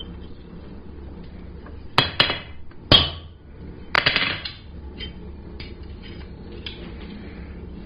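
Hammer striking a center punch to mark screw-hole positions on forged square bar: about five sharp metal-on-metal strikes in three groups between two and four and a half seconds in, each ringing briefly, the one near three seconds the loudest.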